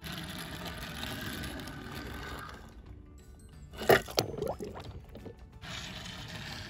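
A foam-covered die-cast toy car drops off a wooden board into foamy water with one sharp splash about four seconds in, followed by about a second of sloshing. A steady rushing noise runs before and after the splash.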